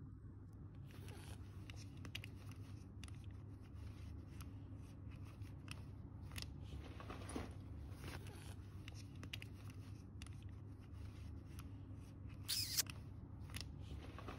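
A fabric bag and its metal strap buckle being handled: scattered rustles, small clicks and scrapes, with one louder scrape near the end, over a low steady hum.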